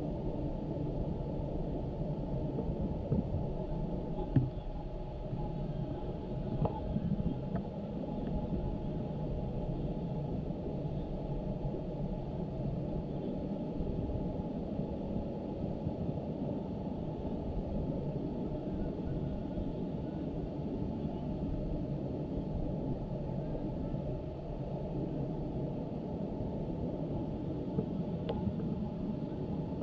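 Steady, muffled low rumbling noise with almost nothing above the low range and a few faint knocks: a faulty audio recording rather than clear match sound.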